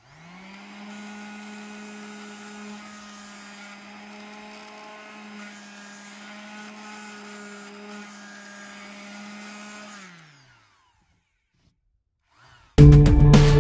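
Electric orbital sheet sander sanding a wooden cabinet door: the motor spins up, runs at a steady hum for about ten seconds, then is switched off and winds down. After a short gap, loud music starts near the end.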